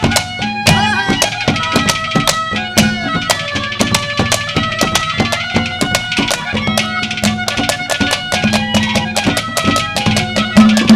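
Instrumental interlude from a Haryanvi ragni accompaniment band: fast, steady hand-drum strokes under sustained melody notes.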